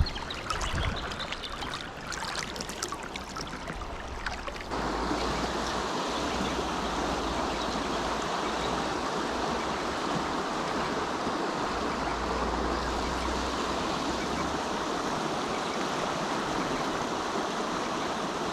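River water running over a riffle, a steady rushing, with some irregular splashy sounds in the first few seconds; about five seconds in it suddenly becomes louder and stays steady.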